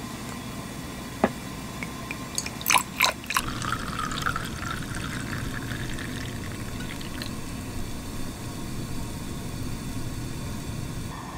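A few sharp clicks, then a persimmon traditional liquor being poured out, the pitch of the pour rising as the vessel fills over about three seconds.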